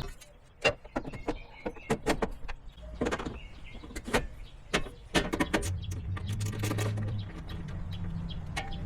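A string of sharp clicks and knocks, as of hard parts being handled, then from about five and a half seconds a steady low motor hum.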